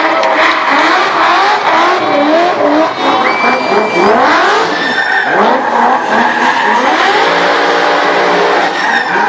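BMW E30 drift car doing donuts: the engine revs up and down again and again against continuous tyre screech from the spinning rear wheels. For a moment near the end the revs hold steadier.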